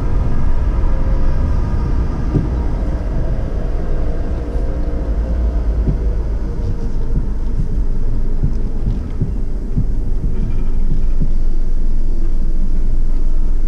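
Low, steady rumble of a car's engine and tyres, heard from inside the cabin as it rolls slowly forward at low speed, with a few light knocks.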